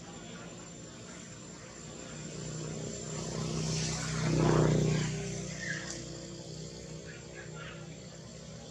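A motor engine passing by, with a low steady hum that grows louder to a peak about four and a half seconds in, then fades away over the next second or two.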